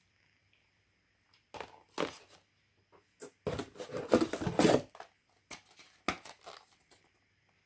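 Handling noises of small diecast model cars: scattered clicks and knocks, with a rustling, rubbing stretch of about a second near the middle.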